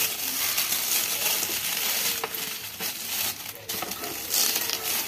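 Shiny gift wrapping paper crinkling and tearing as a small child pulls it off a box, crackling in fits and starts.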